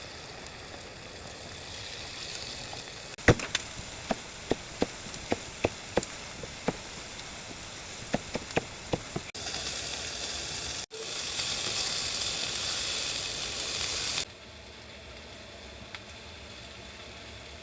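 Chicken gizzards sizzling in a frying pan, with a run of sharp knocks from about three to nine seconds in. The sizzling turns louder and brighter for a few seconds, then drops to a quieter steady hiss near the end.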